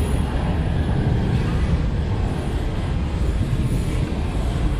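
Brussels Metro train running through the underground station, a steady low rumble with no distinct knocks or squeals.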